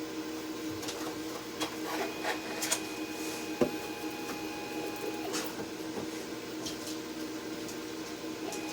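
Laser cutter running: a steady machine hum with a higher whining tone that starts and stops as it works. A sharp knock sounds about three and a half seconds in, with a few light clicks around it.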